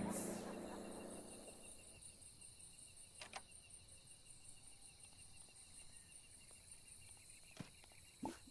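Faint insect chirping: a steady, evenly pulsing high trill, with a few soft clicks.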